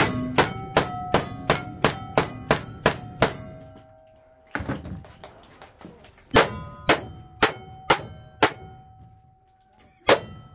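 Rapid close-range gunfire, each shot followed by the ring of a struck steel target: about ten lever-action rifle shots at roughly three a second, a single shot about a second later, then a string of five revolver shots about half a second apart, with another shot starting near the end.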